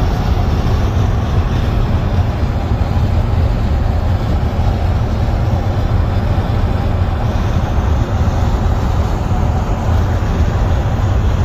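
Steady low rumble of road and engine noise inside a car's cabin while driving.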